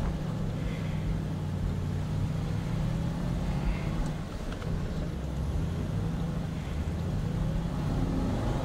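Range Rover Sport engine running steadily under load while its wheels spin in loose sand on a hill climb.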